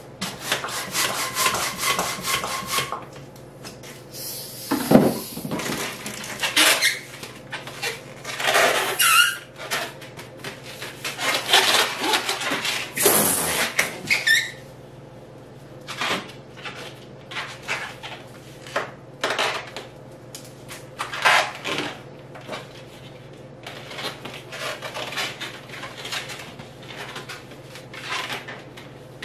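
Long latex modeling balloons rubbing and squeaking in irregular bursts as they are handled and twisted, with a steady squeal for the first three seconds.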